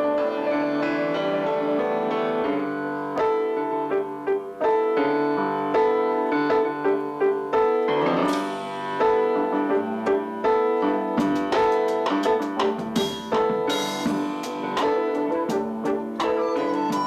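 Piano playing with a drum kit joining in, with cymbal and drum strikes through the second half.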